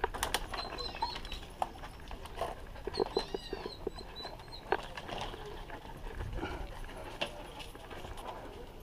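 Knocks, clanks and scrapes of hands and shoes gripping and stepping on an old greenhouse's metal frame during a climb, with a few brief high-pitched animal calls about a second in and again near three seconds.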